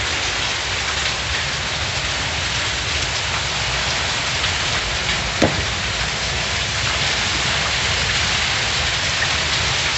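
Heavy rain falling steadily. A single sharp knock about five and a half seconds in.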